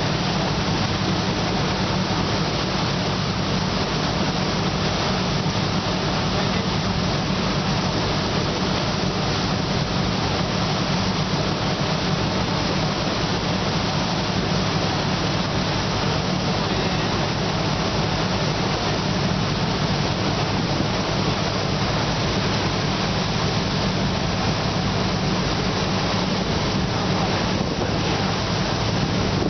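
A boat taxi's engine running steadily under way, a constant low hum, under a steady rush of water along the hull and wind.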